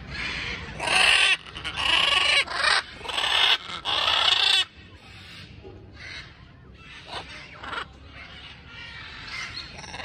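Blue-and-yellow macaws squawking: about five loud calls in quick succession in the first half, then fainter, scattered calls.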